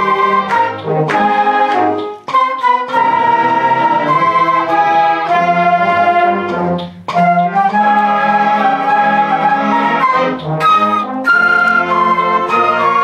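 Concert band of woodwinds and brass playing a piece together: held chords that move from note to note, with short breaks about two and seven seconds in.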